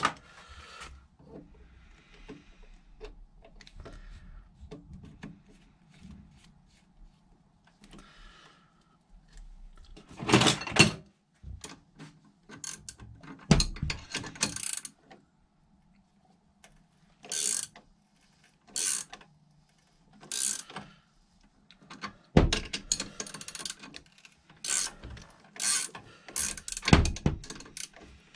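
Tap being turned by hand into a high-tensile steel bolt, cutting a thread: short clicking, grinding strokes of the tap and its wrench. They start about ten seconds in and come every second or two.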